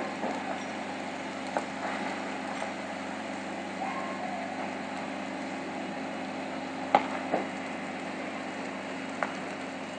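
Large building fire heard from a distance: a steady din with a low hum, broken by a few sharp pops, the loudest about seven seconds in, from small explosions going off in the blaze.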